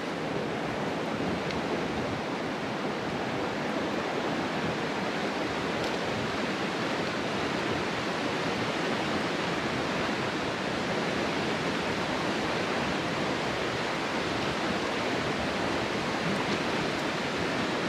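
Steady rushing of water: an even, unbroken hiss with no separate sounds standing out.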